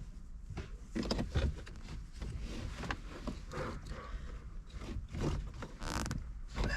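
Irregular clicks, knocks and scraping from hand work on the car's centre-console and shifter parts, with a louder rustling burst about six seconds in.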